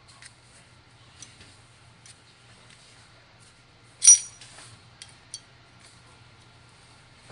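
Small metal parts clinking as they are handled: a few faint ticks, one sharp clink about four seconds in with a short high ring, then two lighter ticks.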